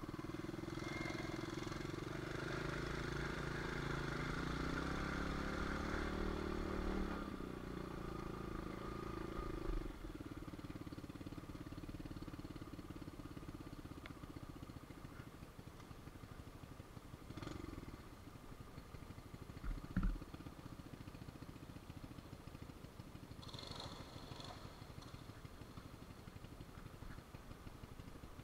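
Small pit bike engine running at higher revs for the first several seconds, then dropping back to a quieter, steady low running. A few short knocks come later on, the sharpest about two-thirds of the way through.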